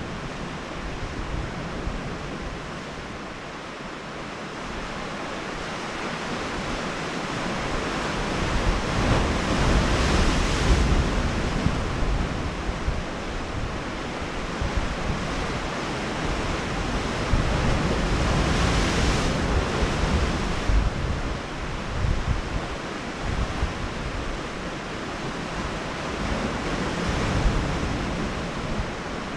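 Sea surf washing against a rocky shore, a steady rushing noise that swells to a peak about every eight or nine seconds, with wind buffeting the microphone.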